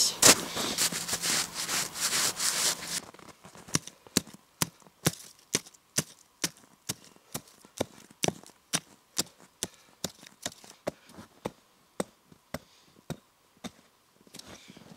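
Hatchet chopping at ice in quick, even blows, about two a second for some ten seconds, to free a carcass frozen to the ice. The blows begin after a few seconds of close rustling.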